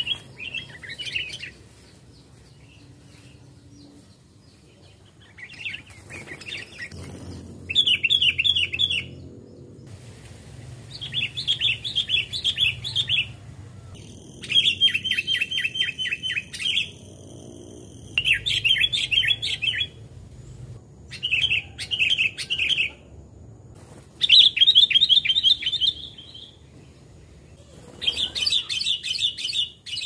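Sooty-headed bulbul calling in bursts of rapid, repeated chirps, each burst a second or two long, coming again every few seconds.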